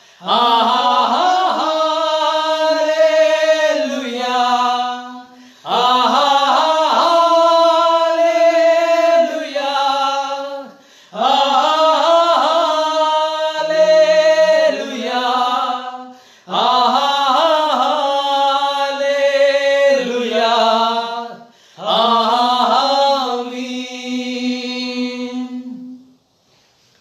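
Three men singing a Hindi Christian worship song together, unaccompanied, in phrases of about five seconds with short breaks for breath between them. The singing stops about a second before the end.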